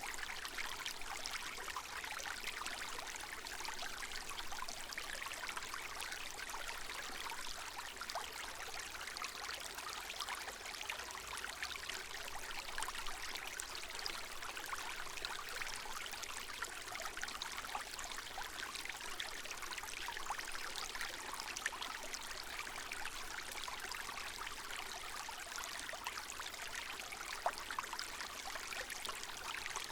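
Small stream running steadily over its bed, a continuous babbling trickle of water with fine splashing.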